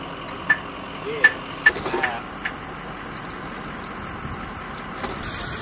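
A few sharp metallic clinks with a short ringing note, spread over the first two and a half seconds, from handling the 20mm ammunition feed at an F-16's open gun bay, over a steady machine drone. A brief voice is heard about a second and a half in.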